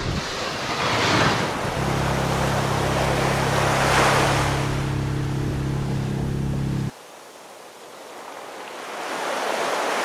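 Small outboard motor on an inflatable dinghy running at a steady pitch under way, with wind buffeting the microphone; it cuts off suddenly about seven seconds in, leaving a softer wash of small waves that swells toward the end.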